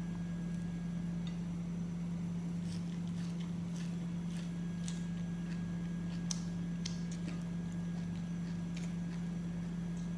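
A steady low hum throughout, with scattered small clicks and crackles of eating and of fingers tearing herbs and roast chicken.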